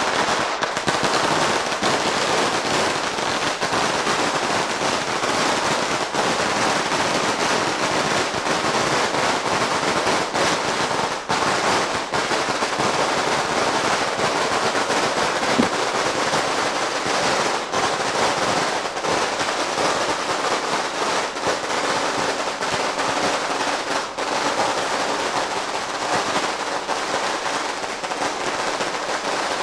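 A long string of firecrackers going off in a dense, unbroken crackle of rapid small bangs.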